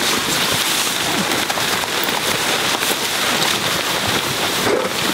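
Steady rain falling, a dense hiss of many small drop impacts.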